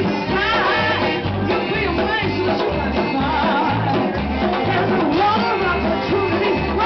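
Live band with a woman singing lead over accordion, saxophone and drums, a steady beat pulsing underneath.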